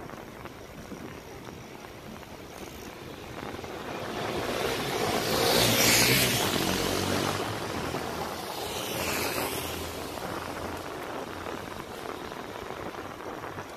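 Steady wind and road noise from riding a bicycle through city traffic, with a motor vehicle passing close by: it builds up, peaks about six seconds in and fades away, and a fainter vehicle pass follows a few seconds later.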